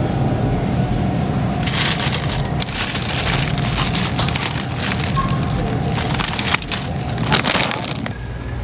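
Plastic bag of frozen vegetables crinkling as it is handled, starting about two seconds in and stopping abruptly near the end, over a steady low hum.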